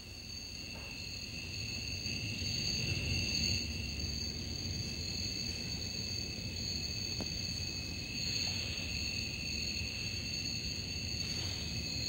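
Crickets chirring steadily in a high, unbroken drone, a night-time sound effect, over a low rumble that swells about two seconds in.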